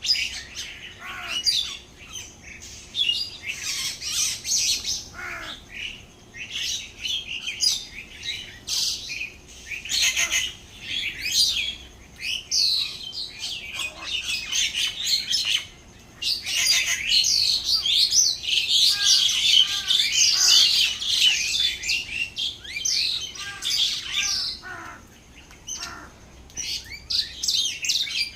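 A group of small birds chirping and chattering, many short high calls overlapping without a break, at their thickest a little past the middle.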